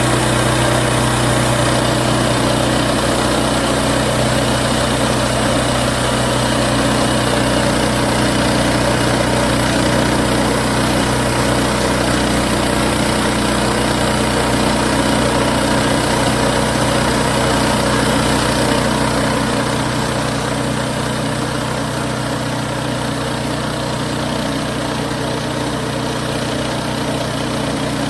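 Wood-Mizer LX50 Super portable band sawmill running steadily, its engine holding a constant speed. The sound gets slightly quieter about two-thirds of the way through.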